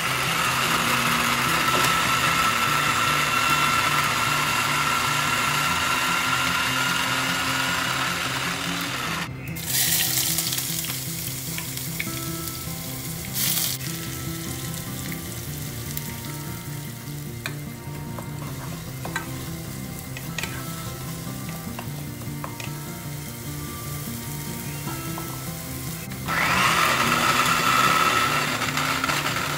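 A small electric food processor runs steadily for about nine seconds, chopping onion. The chopped onion is then tipped into hot oil in a saucepan, with a loud clatter, and fries with a sizzle. The processor runs again for the last few seconds.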